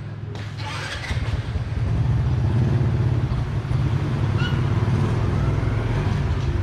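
Motorcycle engine running close by, a steady low drone that gets louder about two seconds in.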